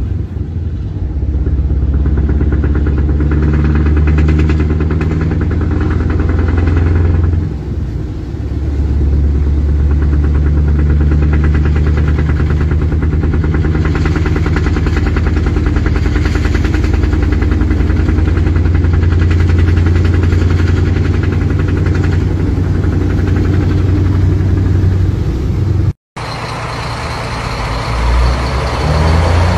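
Scania truck engine pulling hard, heard from inside the cab as a loud, steady deep drone that briefly drops off about seven seconds in and then picks up again. Near the end the sound cuts abruptly to another truck running, quieter.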